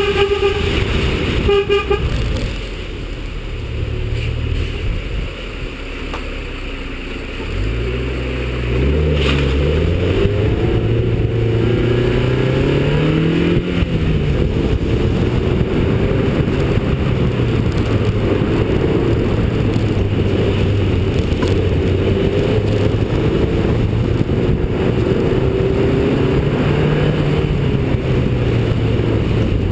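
A car horn tooting in short pulses at the very start. Then the Lotus Elise S2's Rover K-series four-cylinder engine picks up about eight seconds in, revving up through a couple of gear changes, and keeps pulling with revs rising and falling.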